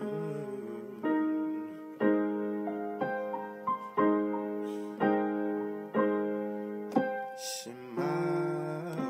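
Background music: keyboard chords, piano-like in sound, struck about once a second, each ringing out and fading before the next.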